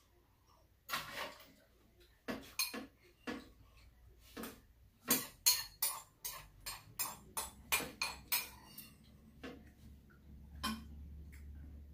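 Metal spoons clinking and scraping against ceramic bowls during a meal: many short, irregular clinks, busiest around the middle.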